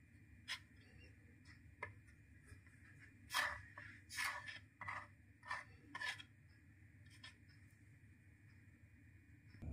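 Fingers rubbing and setting rice-dough sticks down on a wooden chopping board: a few soft taps, then a cluster of short rubbing scrapes in the middle, over a faint steady background hum.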